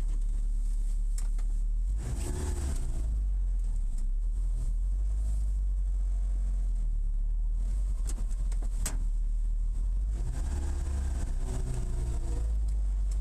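Lotus Elise S1's Rover K-series four-cylinder engine running at low speed, heard from inside the small open cabin as a deep steady rumble. The engine note swells twice with light throttle, and a few sharp clicks come about eight seconds in.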